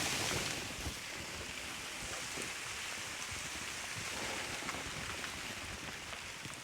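Sleet falling: a steady hiss with scattered small ticks of ice pellets hitting surfaces.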